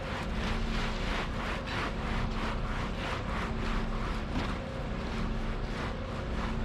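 An engine running steadily, with a rhythmic whooshing that pulses about three times a second over the hum.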